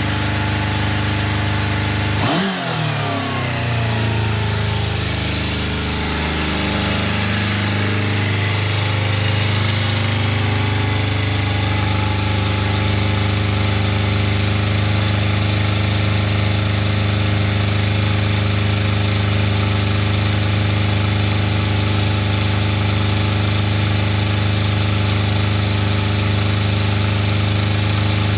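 Suzuki GSX400S Katana's inline-four engine running; about two seconds in the revs fall and slide down over several seconds, then it settles into a steady idle.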